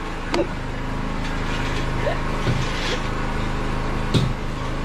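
An engine running steadily with a low, even hum, with a few short knocks over it.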